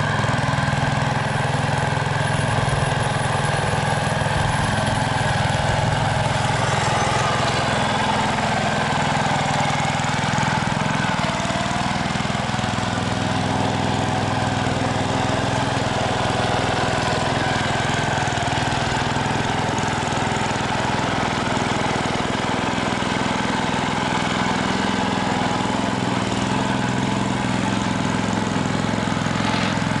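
Engine of a small 1960s Essick road roller running steadily as the roller is driven.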